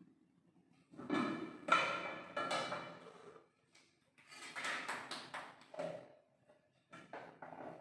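Steel kitchen utensils and pots clattering at the stove: three bursts of knocks and ringing clinks.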